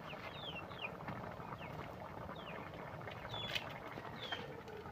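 A wok of fish stew boiling hard, a steady bubbling hiss, while a bird repeatedly gives short falling chirps, about two a second.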